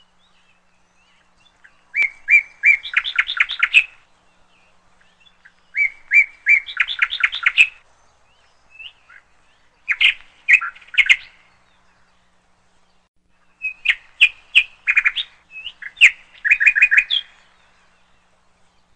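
A small songbird singing in four bouts of quick, high chirps, each bout a second or two long with pauses between.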